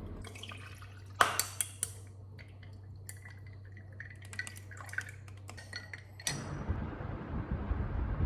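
A few sharp clinks and taps of tableware over a low hum, the loudest about a second in, then a steady rushing noise from about six seconds in.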